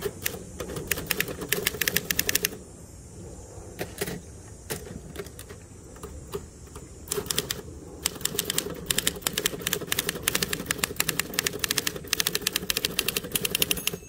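Torpedo 18B manual portable typewriter being typed on quickly: rapid clacking keystrokes, a pause of a few seconds with only scattered strokes, then another long fast run. A steady low hum continues underneath.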